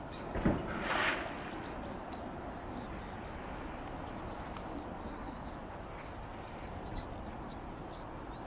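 Outdoor rail-yard ambience: a steady low rumble with small birds chirping over it, and a brief louder sound about half a second to a second in.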